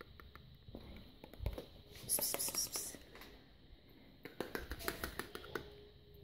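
Small quick clicks of a cat licking at an opened tin of wet cat food, with a louder brief rustle about two seconds in and more light clicks later on.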